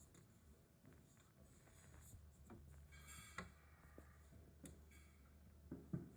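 Faint scattered thumps and clicks over a low steady hum, the loudest thump near the end.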